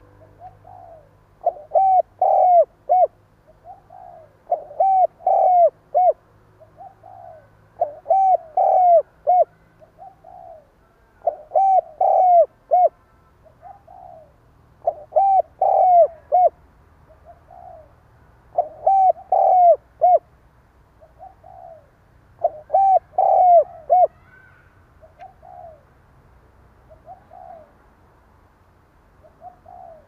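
Spotted dove cooing in its stuttering style: about seven loud phrases, each a quick run of several coos, come roughly every three to four seconds, with softer single coos between them. After about 24 s only the softer coos go on.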